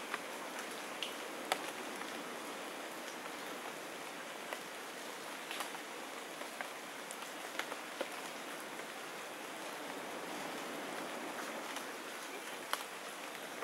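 Steady forest hiss with scattered sharp ticks, like drops falling on leaves; no pigeon call is heard.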